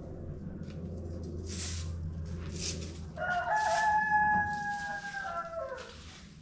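A rooster crows once, a long call starting about three seconds in that drops in pitch at its end. Under it, a broom swishes across paving roughly once a second.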